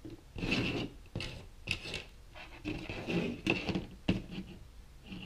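Handling noise of intercom cables and plugs on a tabletop: rubbing and scraping of cords and plastic parts, with a few light clicks as the speaker's 3.5 mm plug is joined to its socket and the cables are set down.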